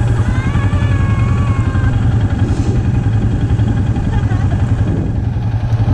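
ATV engine idling steadily in park, a low, even rumble.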